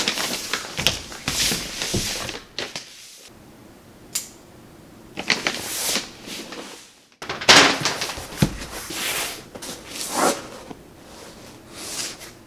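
Packaging being handled at a desk: a cardboard shipping box set down with a knock, then its dark outer wrapping pulled off in bursts of rustling and crinkling, with a few more knocks of the box against the desk.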